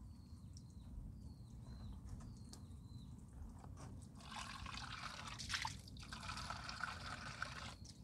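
A bird gives short high chirps about once a second. About four seconds in, a trickling water sound comes in suddenly and cuts off just as suddenly some three and a half seconds later.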